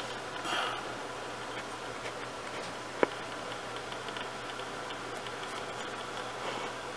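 A small hand tool handling a tiny part on a cutting mat: a soft rustle near the start and one sharp click about three seconds in, over a steady faint hiss.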